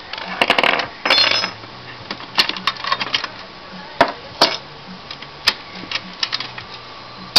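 Desktop computer's sheet-metal case and parts being handled: two short rattling scrapes in the first second and a half, then a string of sharp clicks and knocks.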